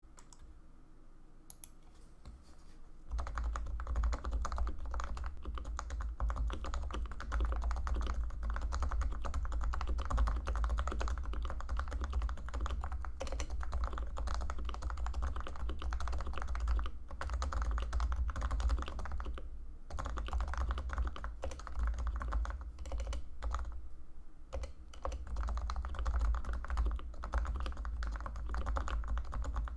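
Typing on a Leopold FC980C keyboard with freshly lubed Topre electrostatic-capacitive switches: a dense, continuous run of soft keystrokes starting about three seconds in, with a couple of brief pauses.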